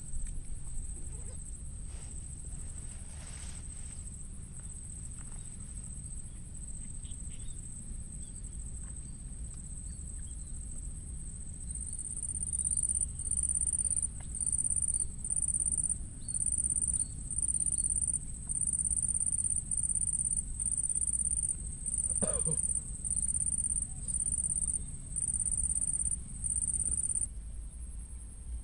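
Insects trilling: a steady high-pitched buzz that, about twelve seconds in, turns into loud regular pulses roughly once a second, stopping shortly before the end, over a low steady background rumble.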